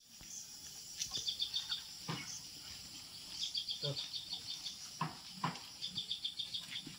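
Rapid high chirping trills in three short bursts of about half a second each, with a few soft knocks in between.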